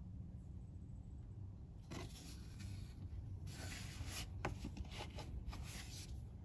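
Scraping and rustling, with a few sharp clicks about halfway through, as hands and a screwdriver work at a screw on the truck's plastic air filter housing, checking whether it is tight.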